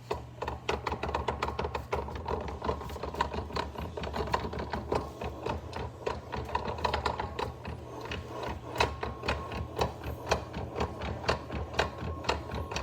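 Rapid, irregular rattling clicks from the rear wheel and drive assembly of a 2024 Honda PCX scooter, over a steady low hum. It is the rattle the owner traces to a loose, untightened part in the rear clutch assembly.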